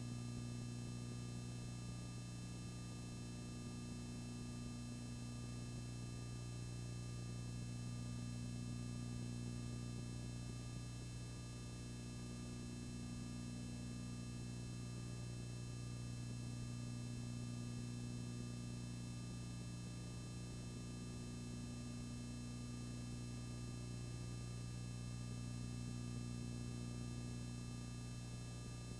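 Steady electrical hum with background hiss and no other sound; a low buzz that never changes.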